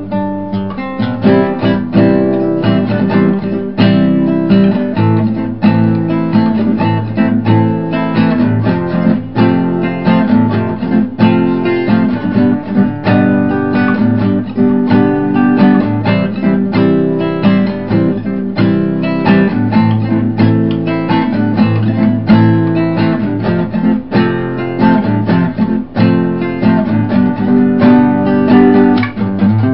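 Background music played on acoustic guitar, a steady run of quick plucked and strummed notes.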